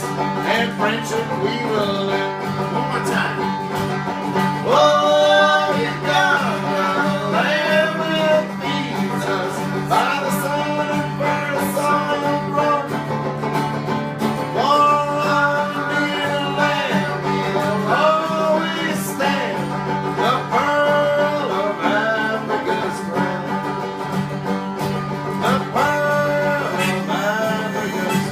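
Music with plucked-string accompaniment over a steady low drone, and a melody of long held notes that slide up and down between pitches in short phrases.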